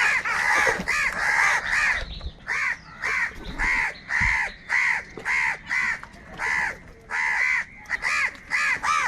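Crows cawing: a rapid series of short, harsh caws at about two a second, several birds overlapping at first, with a brief pause about two seconds in.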